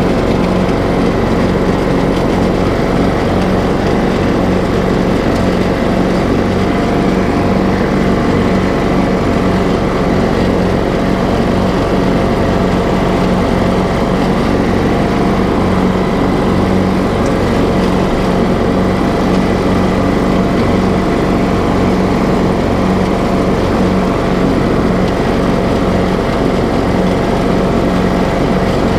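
Troy-Bilt riding lawn mower engine running steadily at an even speed as the mower drives across the lawn.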